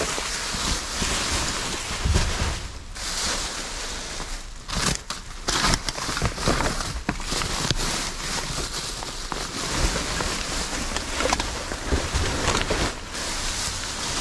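Rummaging through discarded goods in a dumpster: continuous rustling and crinkling of bags and packaging, with scattered clicks and knocks as items are handled.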